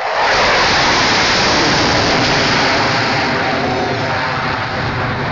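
Su-27 fighter jet passing close overhead, the roar of its twin AL-31F turbofans starting suddenly loud and then slowly fading as it pulls away.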